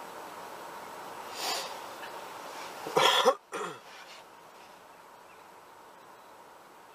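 A person coughing: a loud cough about three seconds in, followed at once by a second, weaker one, with a softer breath-like puff a second or so earlier.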